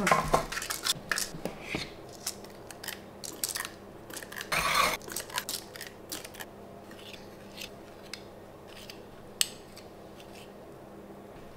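Kitchen handling sounds: pastry tart cases set into a metal muffin tin, then a spoon and spatula scraping filling into them. A run of light clicks and taps, a brief scraping rustle about four and a half seconds in, then sparser taps with one sharp click about nine seconds in.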